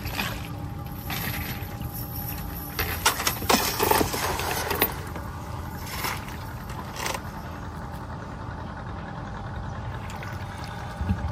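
Steady hum of a small boat engine, with water splashing and knocking against the boat from about three to five seconds in.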